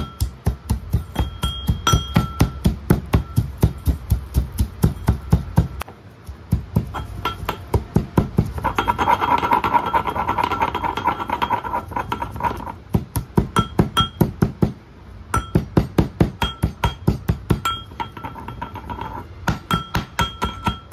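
Metal pestle pounding leaves and spices in a metal mortar: quick repeated strikes, about three to four a second, each with a short ringing clink from the bowl. The pounding stops for a few seconds around the middle, then starts again.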